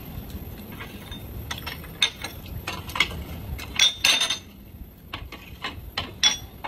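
Plates and bowls clinking and clattering as dishes are moved off the table: a string of sharp knocks and clinks, with a brighter ringing clink about four seconds in.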